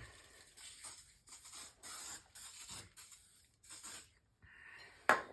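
Short, irregular rubbing and scraping from hand work on a dirt bike wheel and tyre during a tyre change, with one sharp knock about five seconds in, the loudest sound.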